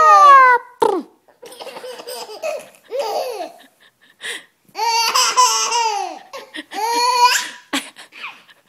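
Six-month-old baby laughing with high-pitched squeals in several bursts, the longest and loudest about five seconds in.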